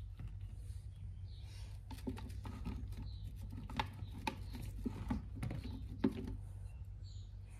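Silicone Squigz suction-cup toy pieces being picked up and fitted together: a run of soft clicks and light knocks, the sharpest about six seconds in.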